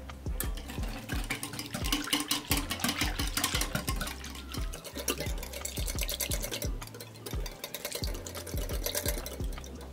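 Metal wire whisk beating milk and egg in a glass bowl. The tines click and scrape rapidly against the glass as the liquid is churned, loudest a couple of seconds in.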